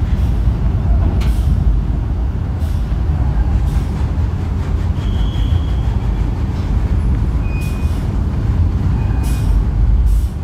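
Mercedes-Benz coach's diesel engine making a deep low rumble as the bus rolls slowly down a ferry's steel ramp, with about five short sharp hisses of air from its air brakes.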